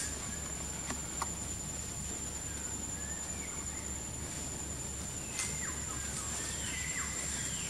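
Tropical forest ambience: a steady high-pitched insect whine, with a few faint short chirps in the second half and a few light snaps and rustles in the branches.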